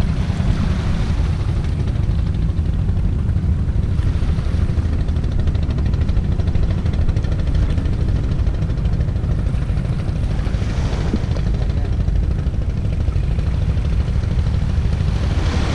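Steady low rumble of an engine running at idle.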